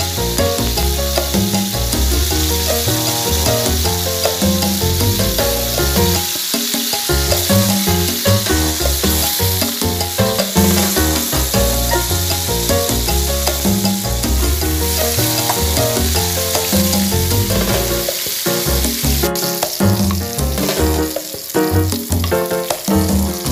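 Pork pieces sizzling as they fry in hot oil in a pan, a steady hiss, with background music playing underneath.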